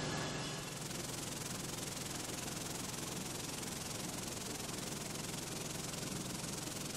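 Cone-shaped ceramic media churning in a vibratory finishing bowl: an even, steady hiss of stones rubbing against each other. It takes over from a low pump hum within the first second.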